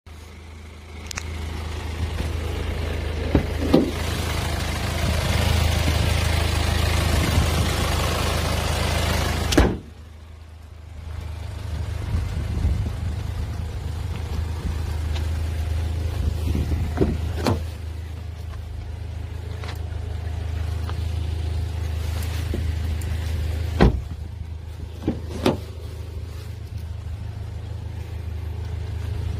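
Kia Sportage turbo-diesel engine idling with a steady low hum. A loud hiss covers the first ten seconds and cuts off suddenly, and several sharp clicks and knocks come through, the last ones as a door is opened.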